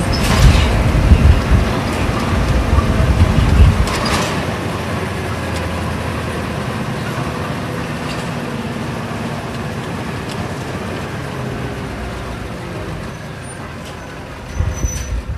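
Isuzu Cubic KC-LV380N bus's V8 diesel engine heard from inside the cabin, running loud and heavy for the first few seconds, then easing off to a quieter, steady run that fades gradually as the bus slows. A brief burst of noise about four seconds in.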